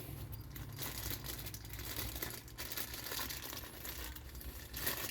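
Plastic packaging crinkling and rustling as a new rubber suspension bushing is taken out of it, with a steady low hum beneath.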